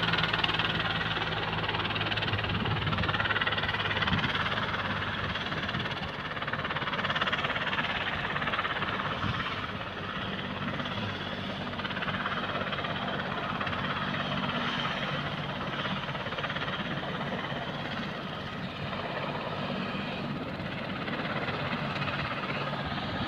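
Helicopter shutting down: its engine gives a steady rushing hum with a low drone underneath.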